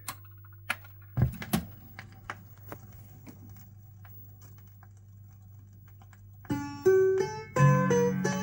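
Sobell radiogram's record autochanger clicking and clunking as it cycles to the next record, then light ticks over a low steady hum. About six and a half seconds in, the record starts playing through the radiogram's speakers: plucked-string music.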